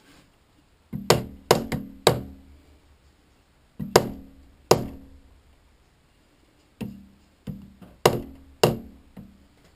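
Hammer tapping a workpiece down onto parallels, seating it. About fourteen sharp knocks with a short metallic ring come in small clusters: a quick run about a second in, a few near four seconds, and another run from about seven seconds on.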